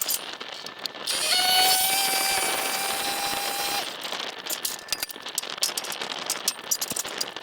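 Machinery whining steadily for about three seconds, starting about a second in with a short rise in pitch, over rapid crackling clicks throughout.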